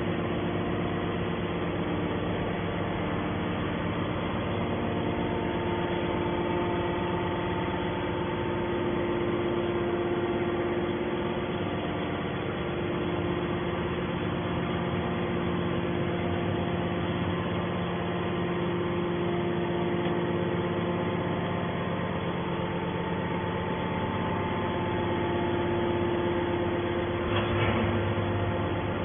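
Scrap metal baler's hydraulic power unit running steadily with a hum of several held tones. A brief louder noise comes near the end.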